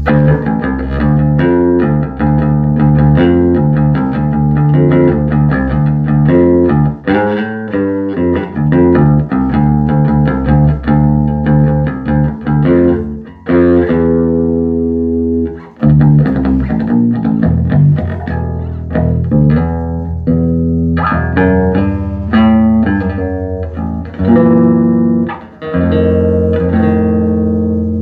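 Electric bass played through a freshly recapped 1974 Ampeg B-15N Portaflex tube bass amp. It plays a busy line of plucked notes, holds a longer note about halfway through, and ends on a ringing held note.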